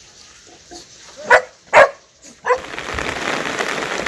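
A dog barks three times in quick succession, the first two loudest. Then steady heavy rain takes over.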